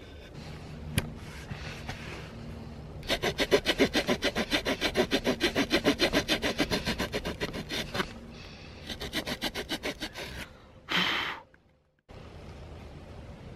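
Small pocket-tool saw blade cutting a slit into a stick of wood in quick, short back-and-forth strokes, about five a second. It saws steadily for several seconds, pauses, then saws again for a shorter run.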